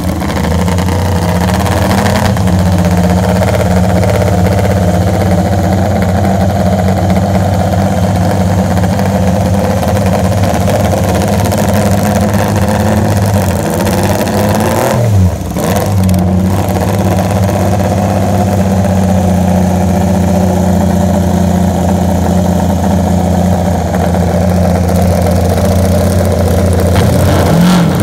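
1972 MV Agusta 500 three-cylinder racing engine, on open megaphone exhausts, running loud at a steady fast idle. About halfway through the revs dip briefly and then pick up again.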